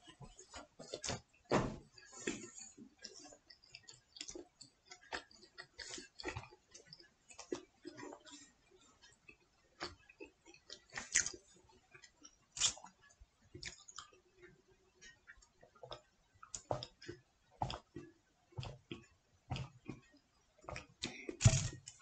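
Quiet, irregular clicks and light taps, unevenly spaced, of tableware (a glass, a metal pizza tray, a juicer) being handled at a meal table.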